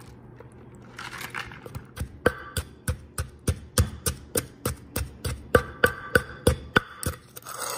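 Wooden pestle pounding crushed pork rinds in a clay mortar, working in the fish sauce seasoning. The dull knocks start about two seconds in and come steadily, about four a second.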